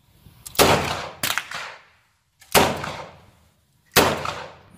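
A revolver firing three loud shots, about one and a half to two seconds apart, each with a short echoing tail. A fainter crack comes just after the first shot.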